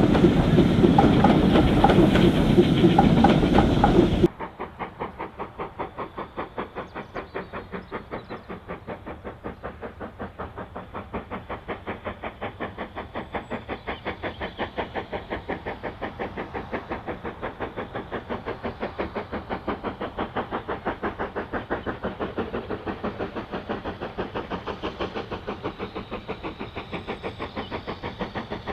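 Steam train running loud and close, then after a sudden cut about four seconds in, a quieter, duller, very even rapid chuffing of a steam locomotive's exhaust, about five beats a second.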